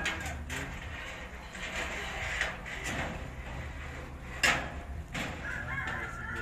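Metal wire oven racks handled and slid in the oven, with several sharp clinks and knocks, the loudest about four and a half seconds in.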